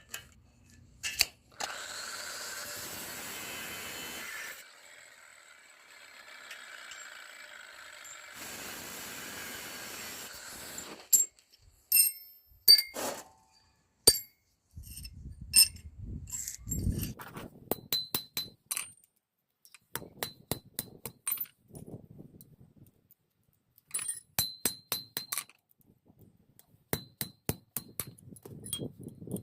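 Metalworking on iron: a steady rushing noise for several seconds at first, then a hammer striking metal, each blow clinking with a bright ring, in quick runs of several blows a second toward the end.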